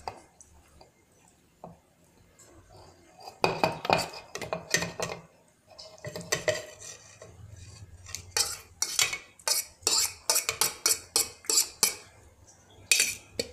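Steel spoon scraping and knocking against a stainless steel bowl and grinder jar while scooping soft boiled tomatoes: a quick run of clinks and scrapes starting a few seconds in.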